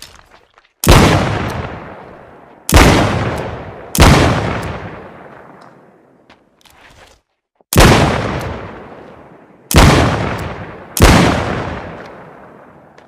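Smith & Wesson Model 13 revolver fired six times in an uneven rhythm: two shots, a pair, then a pair, with a long pause in the middle. Each sharp report trails off in a long echoing decay.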